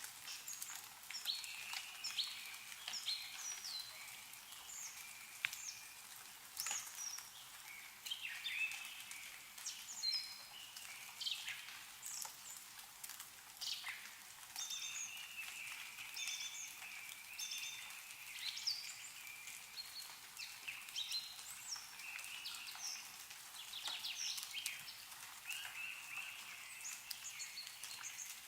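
Several small songbirds chirping and calling in short, high notes, over a light patter of meltwater drops falling from snow-covered trees.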